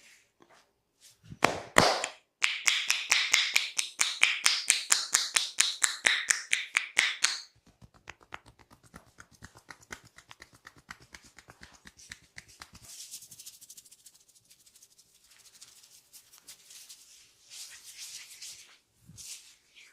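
A barber's hands doing percussive head massage: a loud slap, then about five seconds of rapid, even tapping strikes at roughly seven a second. The tapping then goes on lighter, and softer rubbing and scratching sounds follow near the end.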